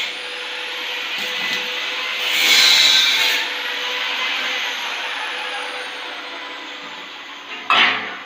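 Arc welding on a stainless steel tube joint with a stick electrode: a steady hissing crackle that swells about two and a half seconds in, then slowly fades. A sharp knock near the end.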